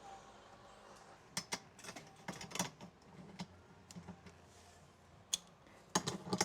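Scattered light clicks and knocks, irregular and in small clusters, from parts of a garage door opener assembly being handled and fitted together.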